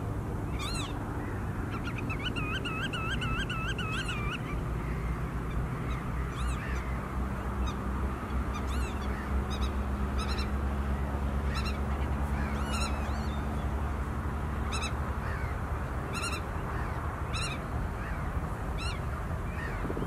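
Black-tailed godwit calling: a quick run of about ten wavering notes about two seconds in, with short thin chirps of small birds scattered through the rest, over a steady low wind rumble.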